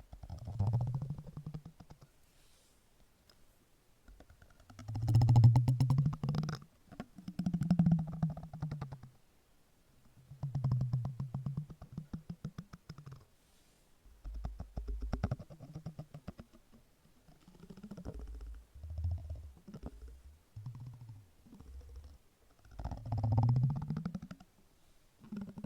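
Close-up silicone texture being rubbed, making a low, rapid rattling buzz in about eight separate bursts of one to three seconds each.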